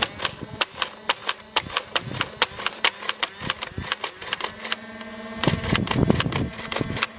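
Battery-powered toy foam-dart machine gun firing a rapid burst, a fast even run of clicks about five a second. The clicking gives way to a lower rumbling noise near the end.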